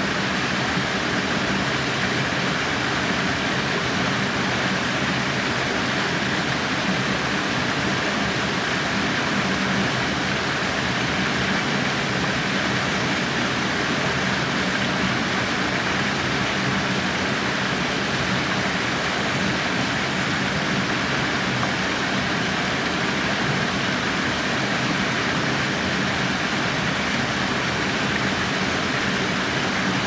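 Small waterfall cascading over rocks into a pool: a steady, unbroken rush of falling and splashing water.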